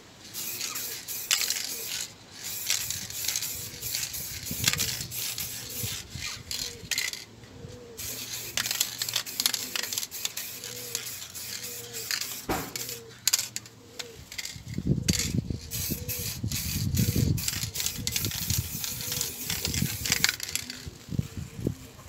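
Aerosol spray paint can hissing in repeated short bursts, the can nearly empty. A low rumble joins in for a few seconds past the middle.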